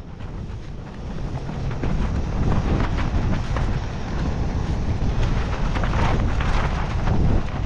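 Strong wind buffeting the tent and the microphone, with the tent fabric rattling, getting louder about a second or two in.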